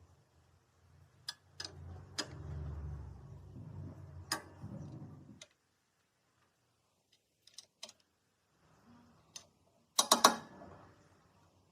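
Scattered sharp clicks and taps over a low hum that cuts off about halfway through; after a near-silent gap, a quick cluster of louder clicks about ten seconds in.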